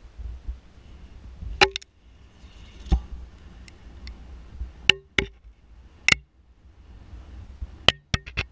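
Sharp knocks and clicks, about ten at irregular intervals, from a camera being lowered down a well and bumping against the shaft wall, over a low rumble.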